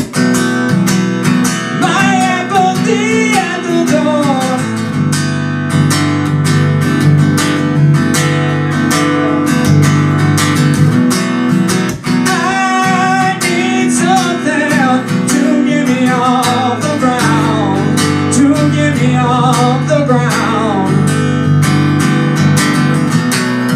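Acoustic guitar played live, strummed and picked steadily, with a man singing over it in stretches.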